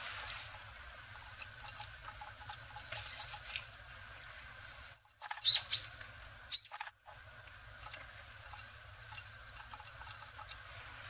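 Small birds chirping in short, curved calls, a pair about three seconds in and the loudest group around the middle, over faint splashing and pattering of a bird bathing in a stone water basin.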